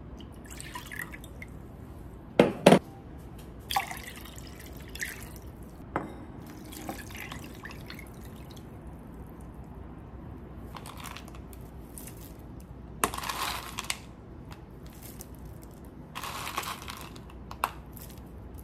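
Liquid being poured and dripping: tsuyu soup base trickling from a glass into a ceramic bowl over ice cubes and noodles. There are a few sharp clinks of glass and ice against the bowl, the loudest two of them a couple of seconds in.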